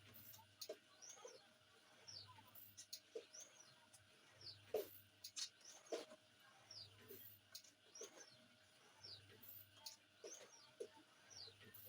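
Automatic cup screen-printing machine running through its cycles, faintly: a high squeak with each stroke about once a second, with light clicks and a low hum that pulses about every two seconds.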